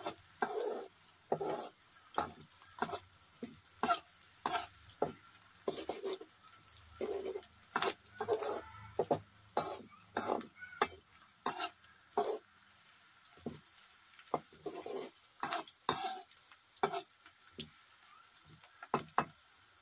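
Sliced onions frying in hot oil in a metal kadai, stirred with a perforated metal spatula: short scraping strokes against the pan, a little over one a second, over a faint sizzle, as the onions are browned to golden.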